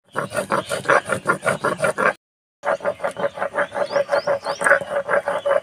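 Stone roller scraping back and forth over a stone grinding slab (shil-nora) as black peppercorns are ground into paste, a fast, even rhythm of about seven rasping strokes a second. It cuts out for a moment a little after two seconds in, then carries on.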